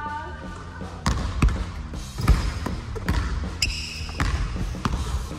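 Basketball bouncing on a hardwood gym floor: a handful of irregular thuds, the loudest about two seconds in. A brief high squeak comes a little before the end.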